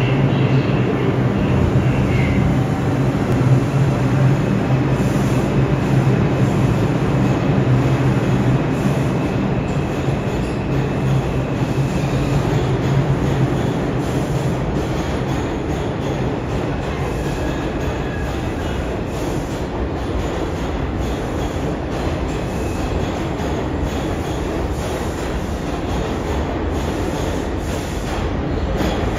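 New York City subway train running on the track at a station platform. A steady low hum in the first half fades out as the overall sound slowly drops off.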